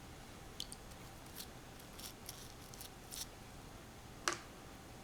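Small steel pistol parts being handled: a few faint, light metallic clicks and ticks, with one sharper click about four seconds in.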